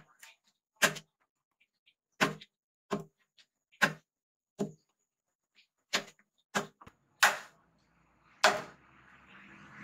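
Kitchen knife chopping okra pods on a plastic cutting board: about nine separate sharp chops, roughly one a second, each a knock of the blade on the board. A softer steady noise follows the last chop near the end.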